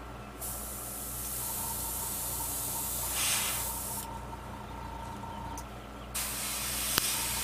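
Airbrush spraying paint onto a fishing lure: two long bursts of hiss, the first running about three and a half seconds, the second starting about six seconds in.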